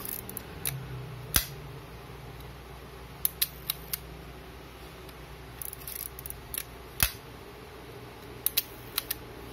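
Agfa Super Silette-L vintage 35 mm camera's mechanism clicking as its controls are worked by hand: about a dozen sharp mechanical clicks, singly and in small groups, with the two loudest about a second and a half in and about seven seconds in.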